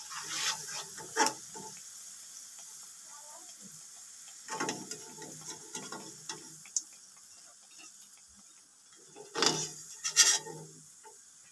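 A metal slotted skimmer scraping and clinking against a metal karahi as fried pakoras are scooped out of the hot oil, in three short bouts: at the start, about halfway, and near the end. A faint sizzle of oil runs between them.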